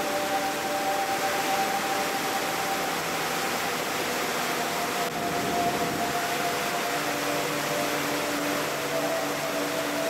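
Steady rush of a large waterfall, overlaid with slow ambient music of long held notes that change pitch about halfway through.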